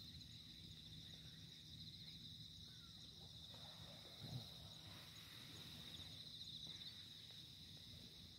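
Faint, steady chirring of insects, a continuous high trill, with a single soft low thump about four seconds in.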